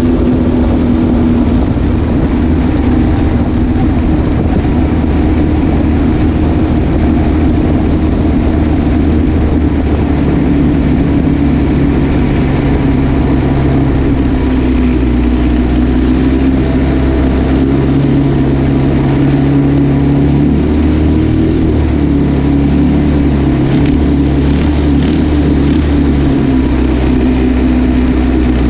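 Junior dragster's single-cylinder engine running at low speed as the car rolls along, heard from a camera mounted on the car. The engine's note holds steady, drifting slightly up and down in pitch.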